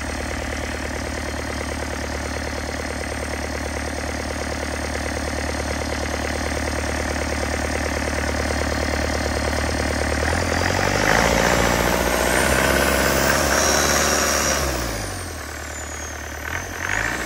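Yanmar 4TNV98 four-cylinder turbo diesel idling steadily on a test run, then revved up about ten seconds in and held for a few seconds before its speed falls away near the end. It runs smoothly, which the dealer takes as the sign of a low-hours, untouched original engine.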